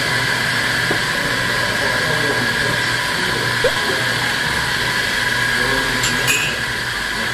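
Cafe equipment running: a loud, steady hiss with a high whine in it that starts suddenly, with a brief click about six seconds in.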